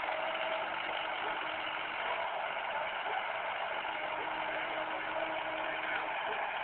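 Excavator engine running steadily, with a faint whine that comes and goes.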